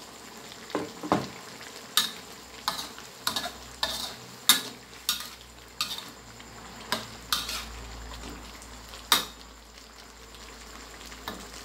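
A metal spatula scrapes and knocks against a steel wok as catfish and Thai eggplant are stir-fried in a wet, spicy sauce, over a light frying sizzle. The strokes come irregularly, about one a second, thinning out in the second half, with the sharpest knocks about four and a half and nine seconds in.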